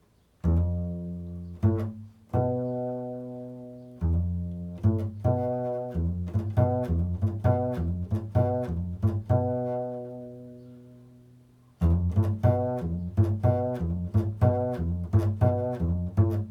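Improvised music on a low plucked string instrument. A few single notes ring out and slowly die away, then come two quicker runs of notes, the second starting a little before the end.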